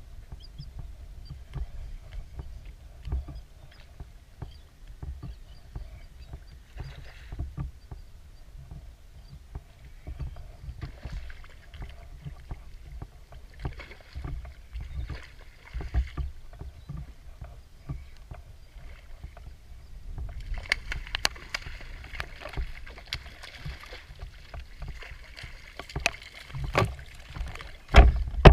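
Small waves lapping and slapping against the hull of a small plastic kayak, with scattered light knocks. From about two-thirds of the way through, heavier water splashing comes in, and near the end a couple of hard knocks hit the hull.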